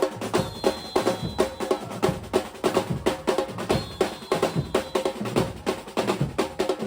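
A samba batucada drum ensemble playing a fast, driving rhythm of deep bass drums and snare drums. A high held tone comes in briefly about every three seconds.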